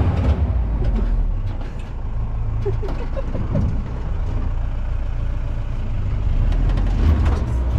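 Off-road jeep's engine running with a steady low rumble, the body rattling and knocking over a rough dirt track.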